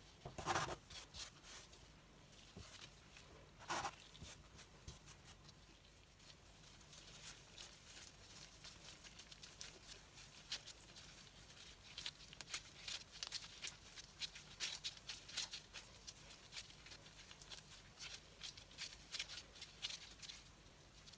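Faint handling of bread dough: a plastic scraper cutting down through the dough onto a plastic board, knocking sharply twice in the first few seconds, then latex-gloved hands pressing, folding and rolling dough into a ball with many small soft clicks and rustles.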